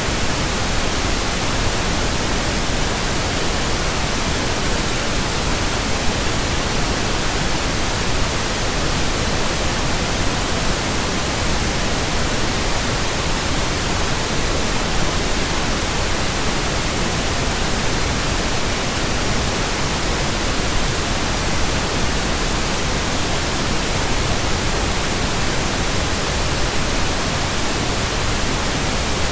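Steady synthetic pink noise: an even hiss with no tones, beats or changes.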